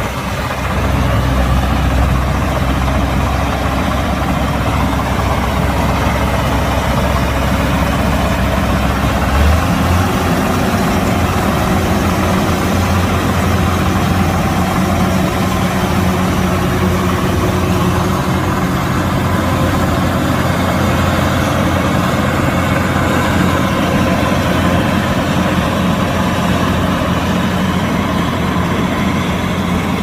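Kubota DC-108X combine harvester's diesel engine running steadily. About ten seconds in, the deep low rumble eases off and a higher steady tone comes in, as the engine's speed or load changes.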